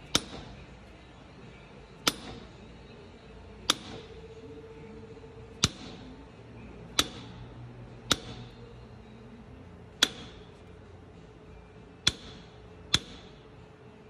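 A hammer taps a socket held on the splined end of a 4WD Tacoma's front axle shaft, driving the shaft back through the wheel bearing hub. There are nine sharp metallic taps, one every one to two seconds, each with a brief ring.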